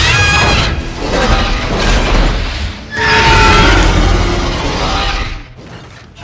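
Ion Dragon monster roar sound effect: two long, loud high-pitched calls over a deep rumble, the second starting about three seconds in.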